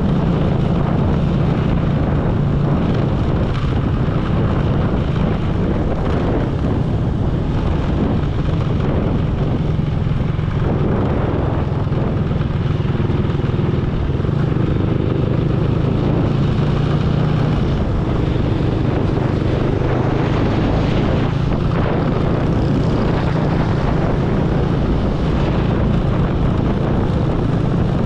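Motorcycle engine running steadily while riding, with wind and road noise on the microphone.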